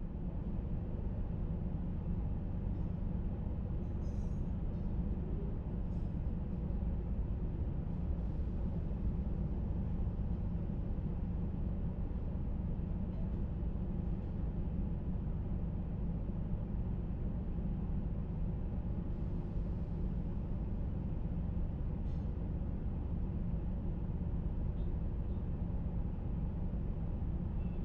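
Steady low rumble of a vehicle on the move, with no distinct events.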